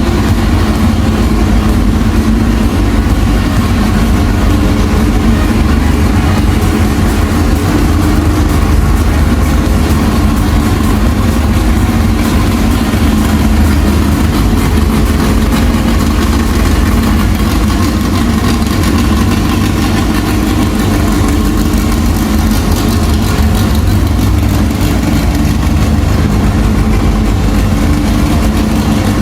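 Engine of a restored 1972 Fiat Abarth running steadily at a constant speed.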